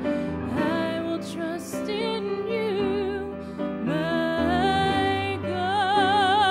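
A woman singing a gospel hymn solo, with wide vibrato on long held notes, over a steady instrumental accompaniment.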